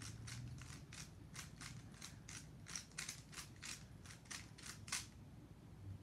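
Plastic 3x3 Rubik's-style speed cube clicking as its layers are turned quickly through a repeated move sequence: an uneven run of sharp clicks, about three a second, the loudest just before they stop about five seconds in.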